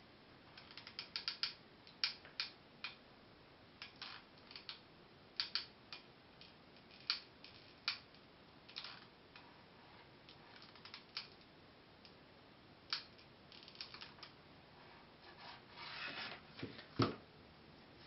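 Hot glue gun's trigger feed clicking and ratcheting in irregular short runs as glue is pushed out. Near the end there is a rustle and a louder knock.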